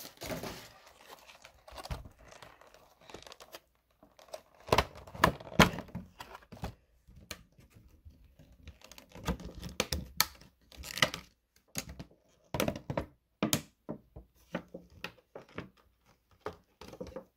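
Clear plastic packaging crinkling and tearing in irregular crackles and clicks as a trading card collection box is unpacked.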